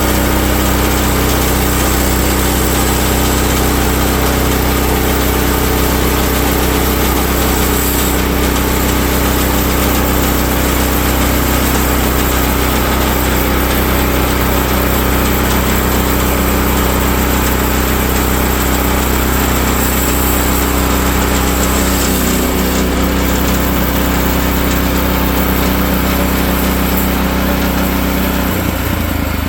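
Woodland Mills HM130 MAX portable band sawmill running steadily, its gasoline engine driving the band blade through a log. About a second before the end the engine's pitch drops as it throttles down.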